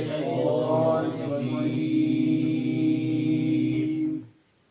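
A man's voice chanting Quranic recitation in slow tarteel style, the word "ash-shaytan" drawn out into one long melodic note. The note stops about four seconds in, and near silence follows.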